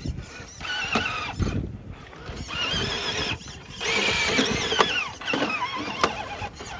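Small electric motor of a radio-controlled rock crawler whining in stretches, its pitch wavering up and down with the throttle. A few sharp clicks and knocks sound over it.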